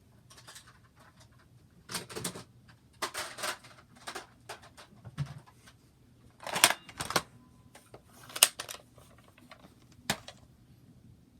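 Irregular clicks, clatters and rustles of things being handled, with a few louder knocks scattered through.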